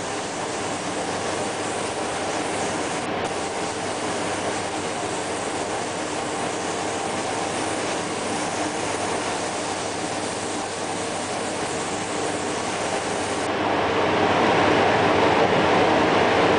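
Spray nozzle hissing steadily as it jets rinse water over a small wooden fishing lure during spray chroming. About three-quarters in, the hiss turns louder and lower.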